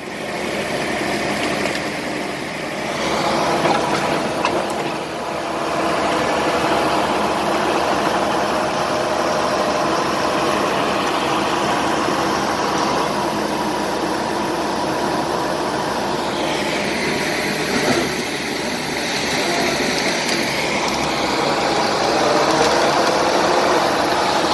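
Komatsu D70LE crawler bulldozer diesel engines running hard as the dozers drag a large log, a steady heavy engine drone whose sound shifts about sixteen seconds in.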